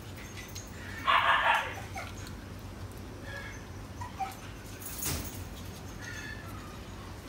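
Newborn puppies whimpering and squealing: one loud cry lasting under a second, about a second in, then fainter high whines.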